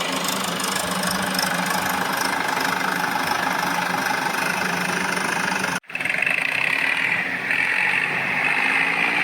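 Toy vehicle motor running steadily with an engine-like hum. It cuts out sharply about six seconds in and comes straight back with a higher whine.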